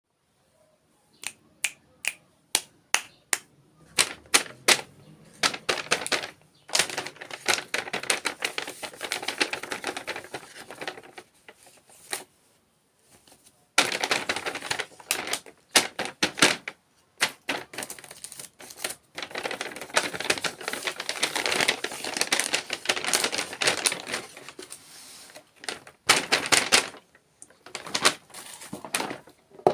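Close-miked ASMR dessert-eating sounds: a run of single sharp clicks and taps, then long stretches of crisp crunching and crackling with short pauses between.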